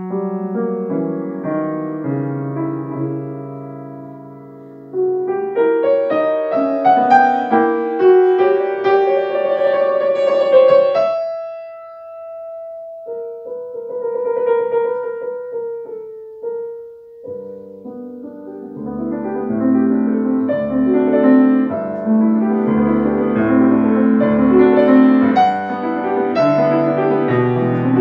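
Solo grand piano playing a classical concert piece: fast, busy passages that thin out to a single held note about eleven seconds in, then lighter repeated notes, then build back into dense, loud chordal playing.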